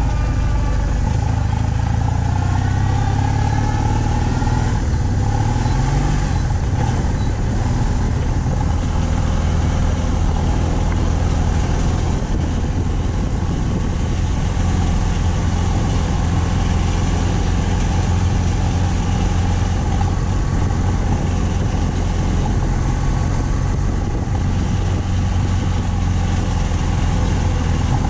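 BMW R 1200 C boxer-twin motorcycle engine and exhaust running under way at cruising speed. The engine note rises briefly about five seconds in, then holds steady.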